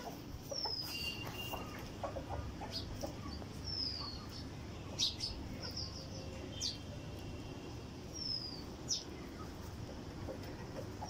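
Backyard chickens clucking softly and sporadically, with three short, high bird chirps that fall in pitch.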